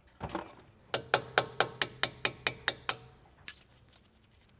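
A small hammer taps a 3/16 in. pin punch in a quick even run of about ten metallic strikes, about five a second, then lands one harder blow. It is driving the spring-loaded pad retaining pin out of a Brembo front brake caliper.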